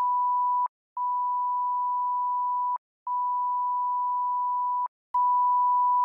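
Censor bleep: a steady pure beep tone that blanks out all other sound, broken by three short gaps and with a faint click at each start and stop.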